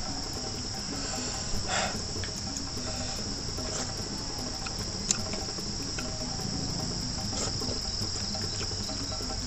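Crickets chirring steadily in a high, unbroken drone. Over it come a brief rustling noise of eating a little under two seconds in and a few faint clicks, as snails are eaten by hand.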